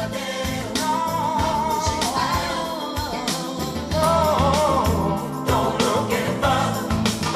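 Soul song with a male lead vocal over drums and bass, played through a pair of 1991 MB Quart 800 hi-fi loudspeakers.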